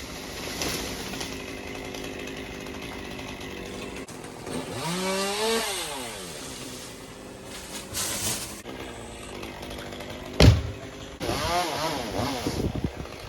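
Chainsaw running in the big maple trees, revved up and back down twice with its pitch rising and falling. A single sharp thump about ten and a half seconds in is the loudest sound.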